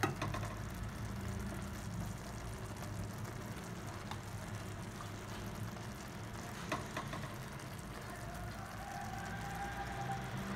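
Low steady hum in a kitchen, with a few light clicks about four and seven seconds in as fried fish steaks are laid on the rice in a steel pot.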